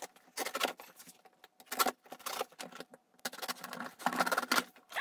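Swiss Army knife cutting through duct tape on a cardboard box, with the tape scraping and tearing in several short bursts.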